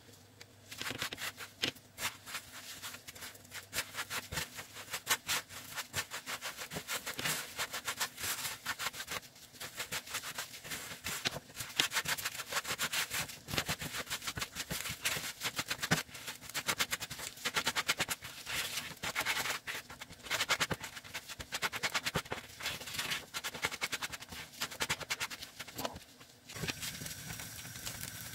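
A silicone spatula stirring and scraping mashed red beans and sugar in a nonstick frying pan, a dense run of irregular scrapes and clicks, while the sugar is being worked in to make sweet red bean paste. Near the end it changes to a softer, steadier hiss.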